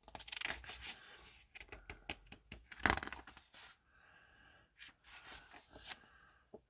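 Pages of an old paper magazine being handled and turned, a crisp paper rustling and crackling that is loudest about three seconds in.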